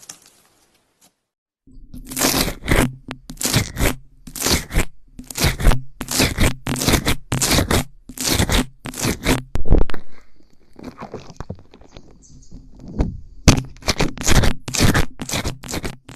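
Slime being squeezed and pressed by hand, giving a run of sharp crackling, crunching pops about two a second, with a quieter stretch in the middle.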